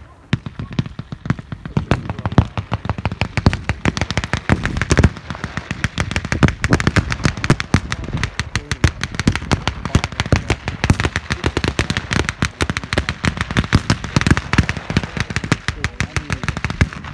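Heavy blank gunfire from many weapons at once: many overlapping shots a second in a continuous crackle, with no let-up.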